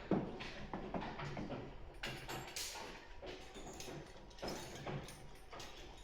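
A run of irregular clicks and knocks, several a second, louder in the first couple of seconds, over a low steady hum.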